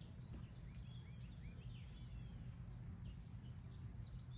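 Faint outdoor ambience: the steady low hum of honeybees, a steady high drone of insects, and scattered short bird chirps.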